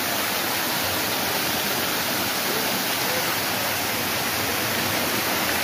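Ornamental fountain spraying a bell-shaped curtain of water into its basin: a steady, even splashing rush.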